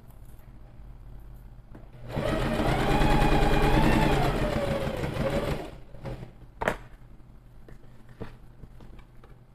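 Electric sewing machine stitching a seam in one run of about three and a half seconds, its motor pitch rising then easing off. A sharp click follows about a second later, then a few faint clicks.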